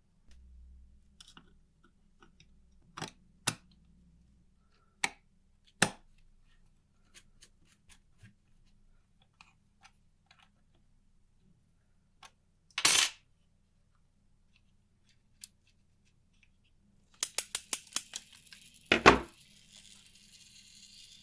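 Small metal parts clinking and tapping on a hard surface: a few separate clinks, a short clatter, then a quick run of clinks and a louder knock near the end, after which a thin high metallic ring lingers.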